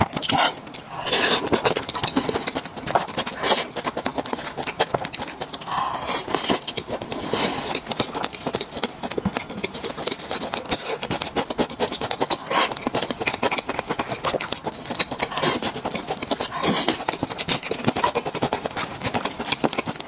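Close-miked chewing and lip-smacking of soft, fatty braised pork knuckle: many quick sticky clicks and smacks, with no crunch.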